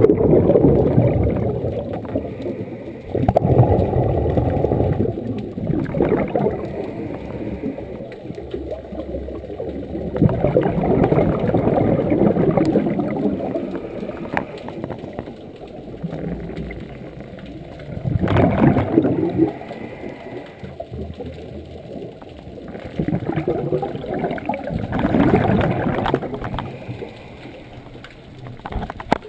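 Scuba diver's regulator breathing heard underwater: bursts of exhaled bubbles lasting two to three seconds, about six of them, repeating every few seconds with quieter stretches between.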